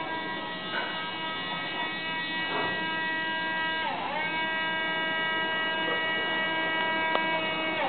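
Whine of the robotic arm's electric servo motors as the arm swings, a steady pitched hum with many overtones. The pitch dips and recovers briefly about four seconds in and again at the very end, and there is a single sharp click shortly before the end.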